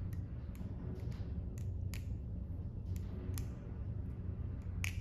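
Stainless steel balisong (butterfly knife) being flipped: the handles swing and knock against each other in sharp metallic clicks at an irregular pace, about a dozen of them, the loudest near the end.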